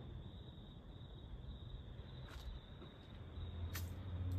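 Crickets chirping faintly, a steady high trill, with a few light clicks toward the end and a low hum coming in over the last second.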